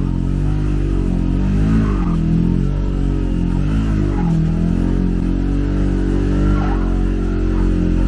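Polaris ATV engine running and being revved, its pitch rising and falling several times, as the wet CVT drive belt slips.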